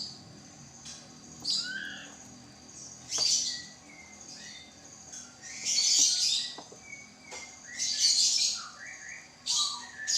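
A bird calling over and over: about five harsh, high squawks a second or two apart, with short rising and falling chirps between them. A few faint clicks come in between the calls.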